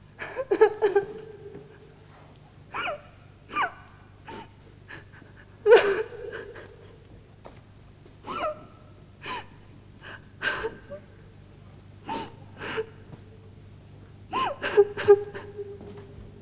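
A woman's repeated gasps and short whimpering cries in distress, a dozen or so separate bursts, the loudest about six seconds in, over a steady low hum.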